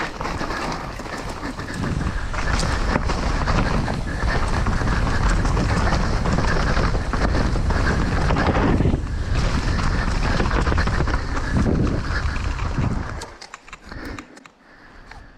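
Riding noise from a downhill mountain bike going down a dirt trail, with wind buffeting the microphone. It drops away sharply about thirteen seconds in, leaving scattered quieter noise.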